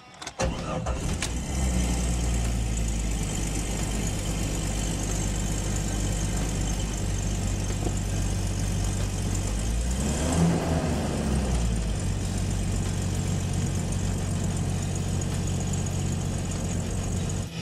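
1998 Jeep Cherokee engine idling with an exhaust leak, running steadily. About ten seconds in it rises briefly in a quick rev and settles back to idle.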